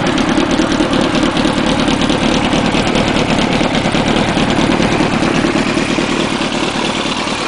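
2001 Yamaha YZF-R1's 998 cc inline-four idling steadily through an Over Racing aftermarket exhaust silencer.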